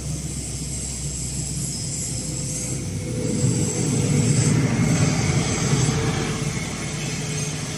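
Industrial woodworking planer with conveyor feed and its dust-extraction blower running steadily as a grooved panel is fed through. It is a dense machine drone with a low hum and a high hiss, louder for a few seconds in the middle.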